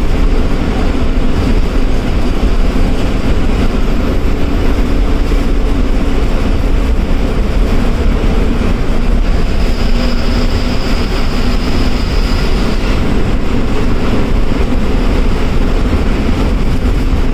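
Loud, steady engine and road noise inside the cabin of a KSRTC ordinary bus driving at highway speed, with a faint high whine for a few seconds about ten seconds in.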